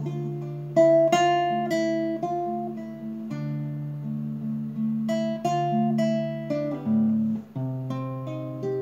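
Classical guitar played fingerstyle: an instrumental passage of plucked notes and chords that ring on, with a brief break about seven and a half seconds in.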